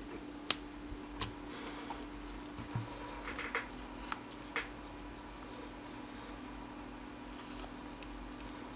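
Light clicks and taps from handling a tiny 3D-printed RC truck and its handheld remote: a sharp click about half a second in, another a moment later, then a scatter of faint ticks and small rattles.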